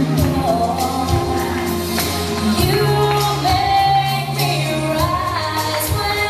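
A song with singing over a steady beat and bass line.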